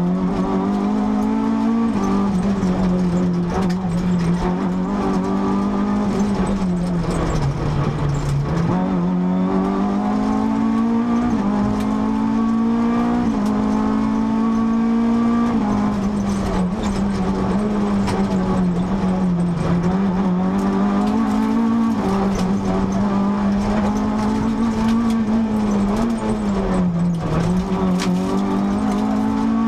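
Renault Clio RS rally car's 2.0-litre four-cylinder engine heard from inside the cabin at full stage pace, its pitch climbing through the revs and dropping sharply at each gear change or lift, many times over.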